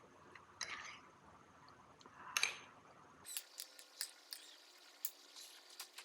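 Small handling sounds in a small room: two brief scraping rustles, then from about halfway through a run of light clicks and taps, as of items being picked up and set down.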